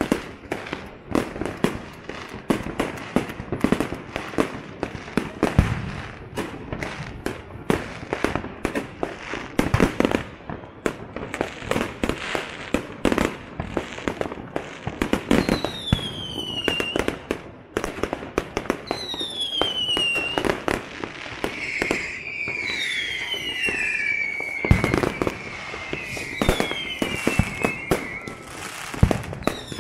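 City-wide fireworks: a dense, nonstop barrage of bangs and crackles from firecrackers and aerial shells, some close and loud, others distant. From about halfway in, whistling fireworks add a falling whistle every three to four seconds.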